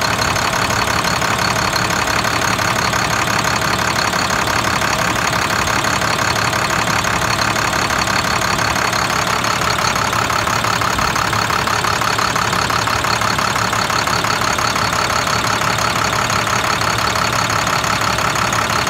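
International DT466 inline-six turbo diesel idling steadily with an even diesel clatter, running again after its high-pressure oil rail o-rings were replaced.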